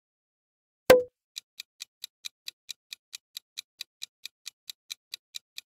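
A single short, loud hit sound effect about a second in, then a countdown timer's clock-tick sound effect, evenly spaced at about four ticks a second.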